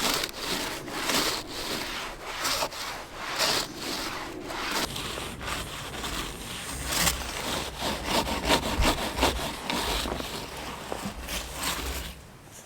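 Repeated rasping, scraping strokes, roughly two or three a second, going on steadily.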